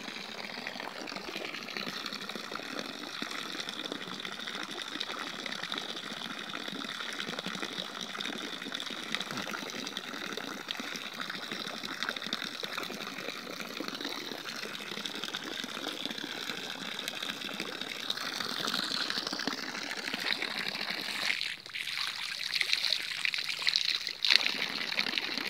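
Water pouring steadily from the 3/4-inch outlet line of a hydraulic ram pump, a thin stream splattering onto the ground, with a couple of brief knocks near the end.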